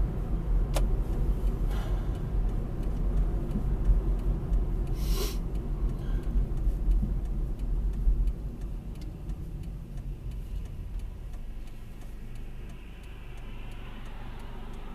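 Car interior noise while driving: a steady low engine and road rumble that drops noticeably about eight seconds in as the car slows. Faint regular ticking runs through it.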